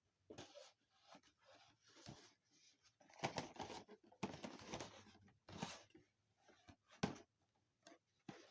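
Faint rustling and scraping from handling action figure packaging, with a few sharp light knocks, the loudest stretch about three to five seconds in.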